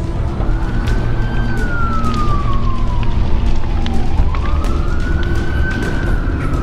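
A siren wailing slowly: its pitch rises, falls and rises again, one full sweep taking about four seconds.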